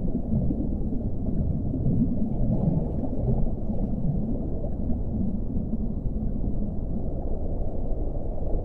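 Underwater ocean ambience: a steady, muffled, low rumbling wash of water with no distinct calls. Held whale-like tones begin just after it ends.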